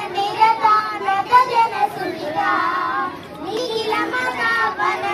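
Children singing a patriotic song about Bharat Mata (Mother India) into hand-held microphones, in sung phrases with a short break for breath about three seconds in.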